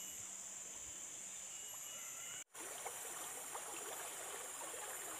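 Tropical forest ambience: a steady high-pitched insect drone over a constant rush of river water. The sound cuts out for an instant about halfway through.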